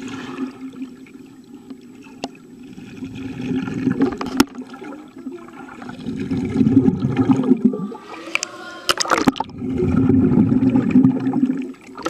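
Muffled water noise picked up by a camera held underwater in a swimming pool: a low rushing and gurgling that swells three times as swimmers move around it, with a few sharp clicks.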